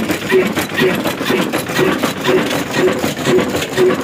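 Old heavy 45 HP stationary diesel oil engine running slowly and steadily. It thuds regularly about twice a second, with the quicker clatter of its valve gear over the top.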